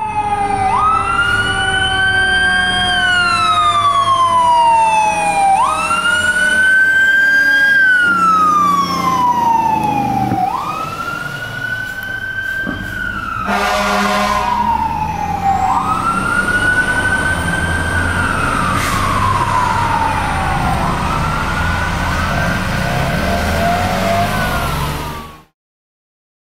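Sutphen ladder fire truck's siren sounding, its pitch sweeping up quickly and then falling slowly, over and over about every five seconds, with the truck's engine rumbling underneath. A short horn blast comes about halfway through.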